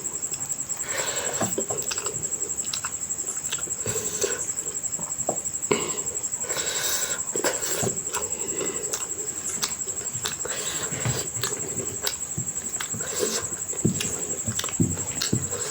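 Close-miked chewing and wet mouth sounds of a person eating rice with curry, with many small irregular smacks and clicks. A steady high-pitched whine runs underneath.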